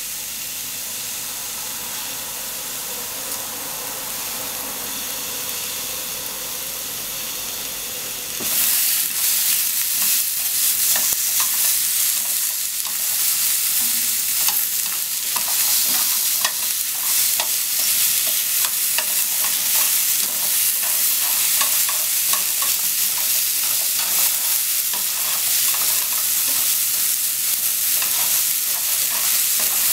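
Sliced Japanese leek (negi) and onion sizzling in a frying pan while being stir-fried with chopsticks. A steady soft hiss gives way, about eight seconds in, to a louder sizzle with many light clicks from the stirring.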